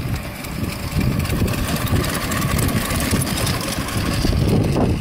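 Miniature railway train running past: a small red locomotive hauling riders in passenger cars, with a steady low rumble from the train on the track.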